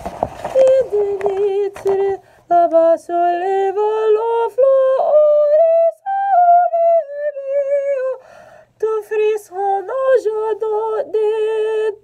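A woman singing a cappella, a melody of held notes with vibrato that step up and down, with a short pause for breath a little past eight seconds.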